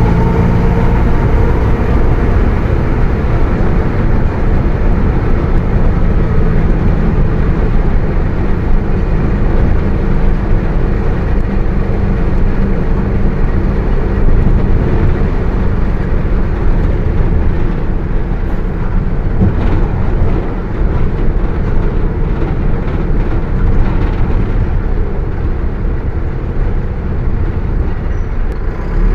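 Mercedes-Benz OF 1721 BlueTec 5 bus's diesel engine and drivetrain running under way: a steady, dense rumble. A faint whine fades out within the first second.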